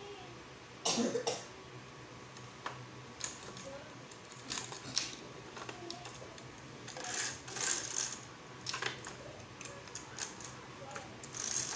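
Irregular small clicks, taps and light rattles of a roller blind's plastic tube, fittings and bead chain being handled, with short bursts of rustling. The sharpest click comes about a second in, and the handling sounds bunch up in the second half.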